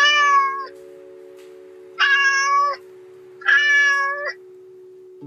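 Kittens mewing: three short, high mews about a second and a half apart, over a faint steady tone.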